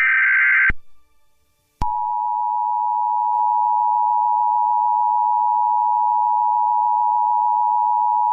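Emergency Alert System tones: the last burst of the SAME header data tones ends within the first second. After about a second of quiet, the steady two-tone EAS attention signal starts and holds, heralding a tornado warning.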